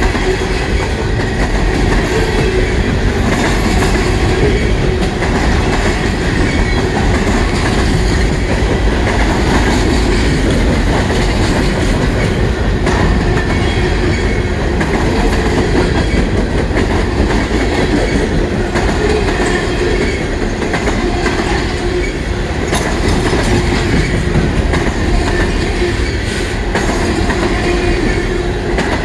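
Freight train of empty municipal-waste container cars rolling past at speed: a loud, steady rumble with the wheels clattering over the rail joints.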